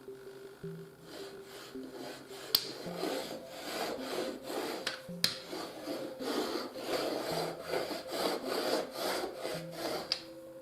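Hand-made udon dough being worked on a board: repeated rubbing, scraping strokes that grow busier after about two seconds, with two sharp knocks.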